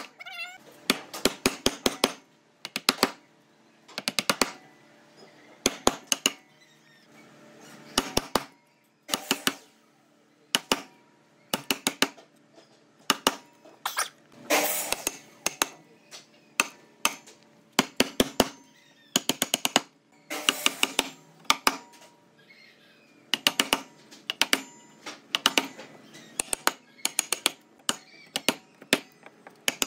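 A steel chisel driven by hammer blows, chopping a notch into a round log: quick clusters of two to four sharp strikes, one cluster every one to two seconds.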